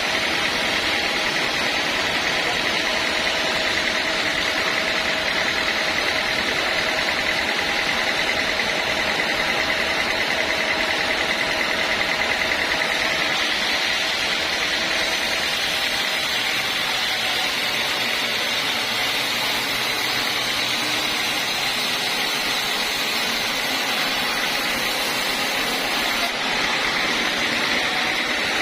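Sawmill saw running steadily, a continuous high whine over a hiss with no breaks or changes.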